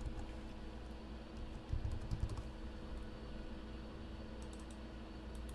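Typing on a computer keyboard: a few scattered keystrokes and clicks, with a couple of low thumps about two seconds in, over a steady low electrical hum.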